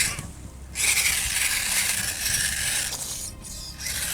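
1/18 Temper 4WD Gen 2 RC rock crawler driving on ice: a steady scraping hiss of tyres and drivetrain. It stops briefly just after the start and eases off a little near the end.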